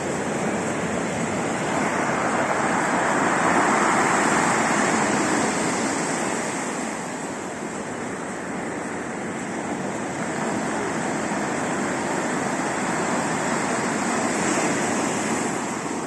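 Storm surf on the sea: heavy waves breaking and rushing in foam, a dense, continuous wash of noise that swells a few seconds in, eases around the middle and swells again near the end.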